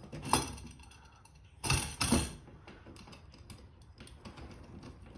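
A lamp fixture being tightened onto its mounting box: a sharp click, then about a second and a half later a short, louder clatter of hard parts knocking together.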